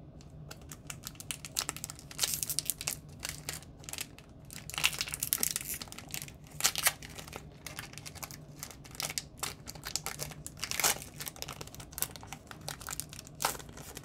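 Foil wrapper of a Pokémon trading-card booster pack crinkling and tearing as it is torn open by hand, a long run of sharp crackles.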